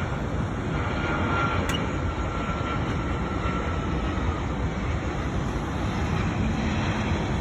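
Steady rumbling roar of airliner jet engines across the apron, with a faint high whine from about one to three seconds in.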